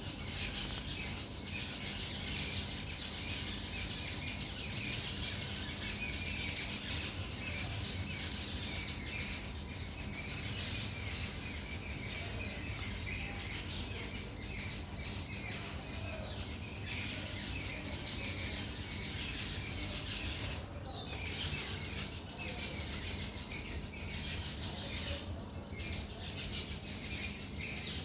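Many birds chirping and calling together in a dense, continuous morning chorus, thinning briefly twice in the later part, over a faint low background rumble.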